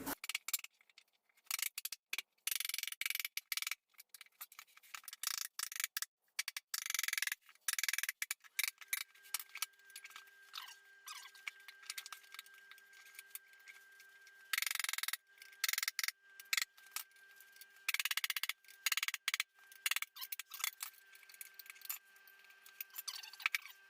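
Metal pry bars clinking and scraping against a metal mower wheel rim while the tire bead is pried off the wheel, in irregular short metallic clicks and scrapes.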